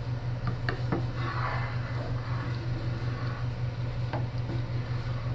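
A wooden spatula stirring noodle soup in a pot: soft swishing with a few light knocks against the pot, several in the first second and one more about four seconds in, over a steady low hum.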